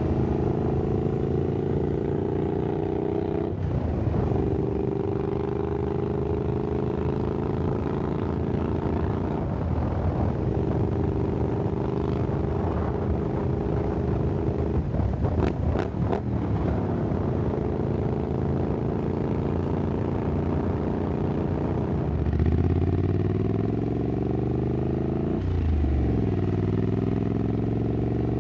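Triumph Scrambler 900's parallel-twin engine through an aftermarket exhaust, ridden at a steady pace, its note breaking briefly and picking up again several times as it changes gear, with revs climbing near the end.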